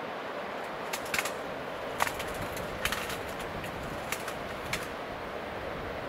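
Steady rushing outdoor noise, with about half a dozen sharp clicks at irregular intervals, the loudest about two seconds in.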